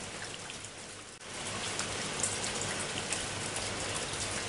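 Steady rain falling, an even hiss of rain that dips briefly about a second in and then carries on unchanged.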